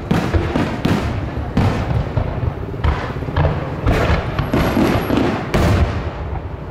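Fireworks display: aerial shells bursting in quick succession, a dense run of booms and bangs about one every half second, with a loud burst near the end.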